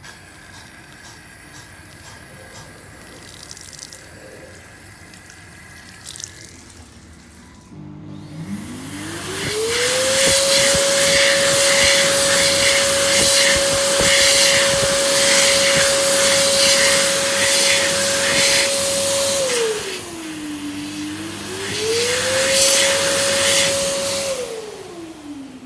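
JetDryer hands-in hand dryer starting up about eight seconds in: its motor whine climbs quickly to a steady high pitch over a loud rush of air. The pitch drops and climbs back once, then the dryer winds down near the end.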